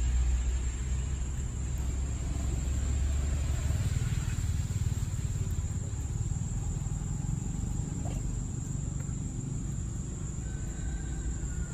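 Outdoor background: a low steady rumble that is heaviest for the first few seconds, under a thin, steady high whine.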